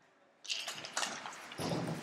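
A moment of near silence, then about half a second in, ice hockey play sounds start abruptly: skate blades scraping the ice and several sharp clacks of sticks and puck.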